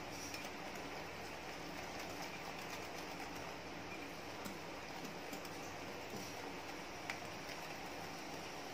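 Wire whisk stirring milk into powdered biscuit in a glass bowl: faint steady scraping with a few light clicks.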